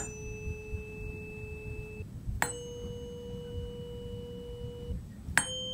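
Three tuning forks struck one after another with a rubber mallet, from the largest to the smallest. Each rings a steady pure tone, each higher than the last, and the third, the 512 Hz C fork, is struck near the end.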